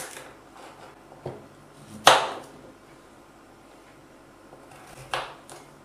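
Kitchen knife chopping carrots on a plastic cutting board: four separate sharp chops, the loudest about two seconds in.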